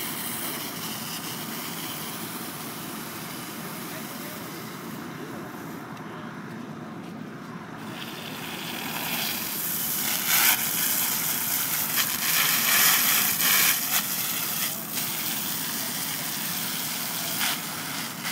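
Fire engine's pump running steadily under load. About eight seconds in, a smooth-bore nozzle on a handline opens and its solid water stream adds a loud hiss that surges unevenly.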